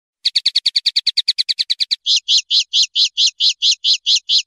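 Common linnet singing: a fast trill of about a dozen notes a second begins a moment in, then switches about two seconds in to a slower, evenly paced run of longer notes, about five a second.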